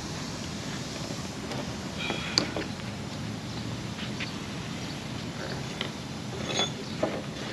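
A few light clicks and knocks of hand work on the fuel tank's pump assembly over a steady background hiss, with a short squeak about two seconds in.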